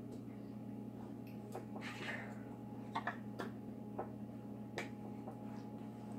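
Scattered light clicks and taps of a plastic spice jar and its lid being handled and opened on a table, about eight in all, over a steady low hum.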